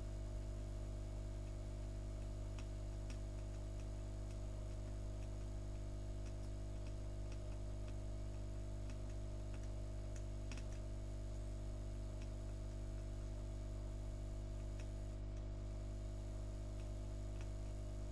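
Steady low electrical hum with a few faint, scattered ticks.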